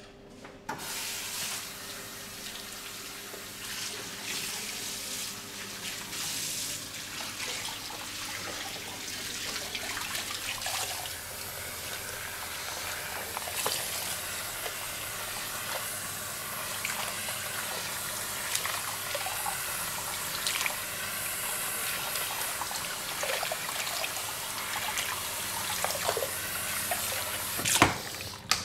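Running water with small splashes and clicks, starting abruptly about a second in and cutting off suddenly at the end, with one sharp knock just before it stops.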